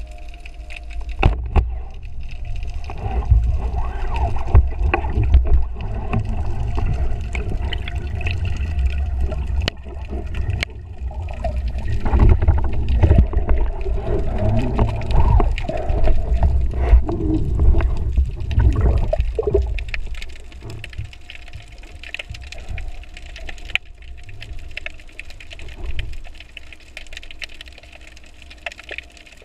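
Underwater rushing and gurgling of water around the camera, with scattered clicks and knocks, as a spearfisher hauls in a speared amberjack. It is loud and busy for the first twenty seconds or so, then settles to a quieter wash.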